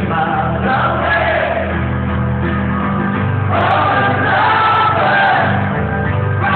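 Live rock band music with singing, heard from the audience in a concert hall; the music swells a little about halfway through.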